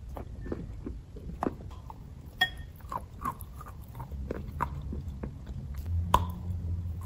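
Wet chalk being bitten and chewed: a string of sharp, irregular crunches, roughly one every half second.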